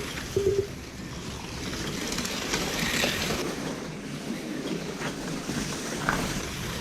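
Steady noisy drone of model race cars running on a home track, mixed with dubbed Legends race car engine sound. A short electronic double beep, typical of a lap counter, sounds about half a second in.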